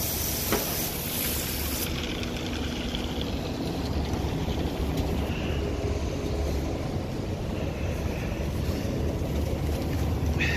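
Water from a washout hose hissing as it sprays, cutting off suddenly about two seconds in. Under it the concrete mixer truck runs with a steady low rumble.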